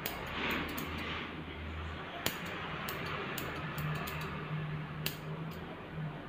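Grooming scissors snipping the hair on a small dog's face: a series of sharp, irregularly spaced clicks over a steady low hum.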